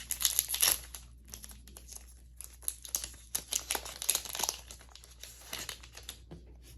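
Foil Yu-Gi-Oh booster pack wrapper crinkling and cards being handled: a run of quick, crisp, irregular rustles and clicks.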